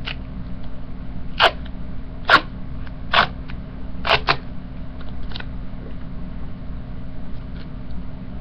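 Duct tape being pulled from the roll and cut into a strip: about five short, sharp snaps roughly a second apart, two of them close together, over a steady low hum.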